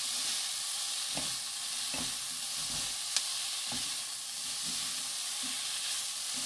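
Julienned bellflower root sizzling steadily in a hot nonstick pan as it is tossed with two wooden spatulas. Soft strokes of the spatulas come every second or so, with one sharp click about three seconds in.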